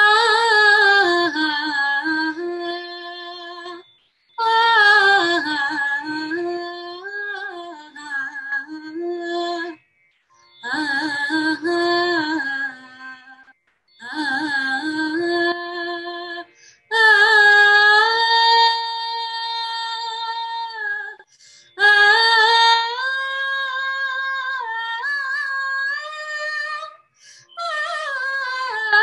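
Solo female voice singing a Carnatic alapana in raga Abheri, unaccompanied: seven long phrases of slow, gliding, ornamented melody, each a few seconds long, with short breaks for breath between them.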